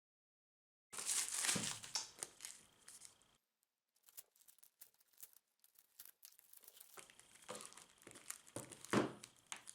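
Packaging being handled and torn open to unbox a speed cube: crinkling and tearing about a second in, light clicks and rustles in the middle, and more crackling with a sharp knock near the end.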